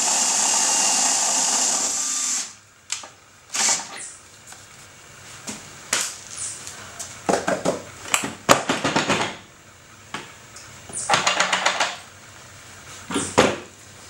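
Cordless drill driving a roller malt mill, crushing grain with a steady noise that stops about two and a half seconds in. Then a string of knocks and clatter, with a quick rattle near the end, as the mill and plastic buckets are handled.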